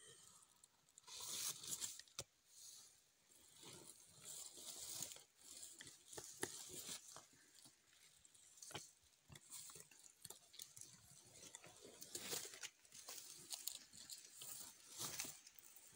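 Komodo dragon swallowing a goat carcass whole, giving faint, irregular crunching, tearing and crackling noises as it gulps and jerks the body down.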